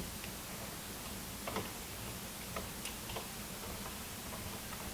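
Faint, irregular small clicks and ticks of a screwdriver and wire being worked at a circuit breaker's terminal screw in a metal breaker panel.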